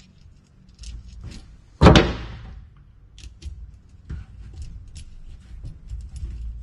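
Small clicks and taps of screw, washer and screwdriver being handled while a screw is driven by hand, with one louder knock about two seconds in.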